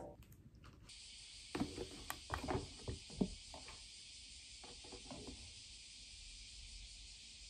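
Faint clicks and knocks of a hair straightener being handled and its cord moved, over a steady faint hiss.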